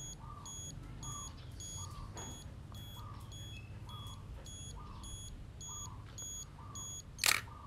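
Olympus OM10's electronic self-timer beeping about twice a second as it counts down. About seven seconds in, the shutter fires with one sharp click; the owner finds this shutter fires at the same speed whatever the setting.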